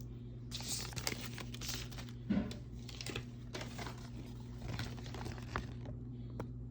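Thin plastic packaging from a Mini Brands toy capsule crinkling in irregular spurts as it is handled and peeled open, with a sharper crunch a couple of seconds in.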